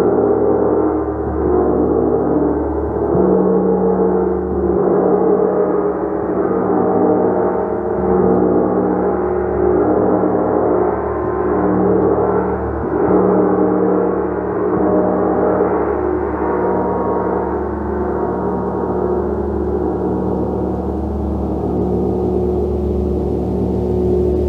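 Gong played continuously in a sustained, shimmering wash of many overlapping tones, swelling and easing every few seconds as it is kept sounding, with no sharp strikes.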